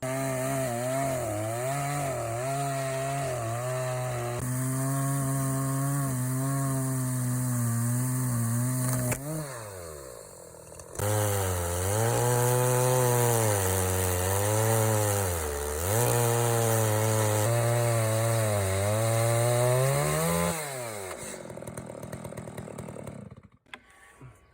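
Chainsaw engine running hard as it drives an Alaska chainsaw mill's ripping chain through an oak log, its pitch wavering with the load. The engine note sags and drops away around nine seconds in, picks up again about two seconds later, and winds down near the end.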